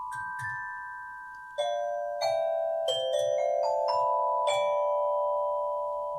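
A short musical interlude on a tuned percussion instrument: about ten struck notes in a slow, uneven run, each ringing on so that the notes overlap, with the last strike about two-thirds of the way through and left to fade.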